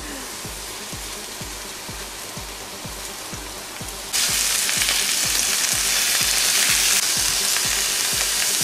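Pieces of meat searing in a hot frying pan: a steady sizzle that becomes much louder and brighter about four seconds in.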